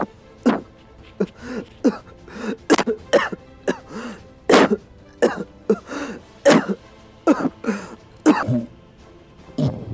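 A man coughing in a long fit of short, harsh coughs, one close after another, pausing near the end before one last cough. Faint music runs underneath.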